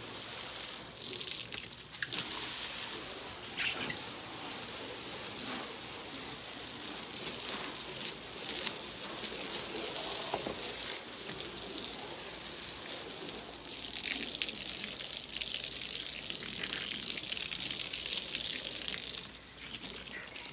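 Garden hose spraying water onto wet deck boards: a steady hissing splash, briefly broken about two seconds in and fading near the end.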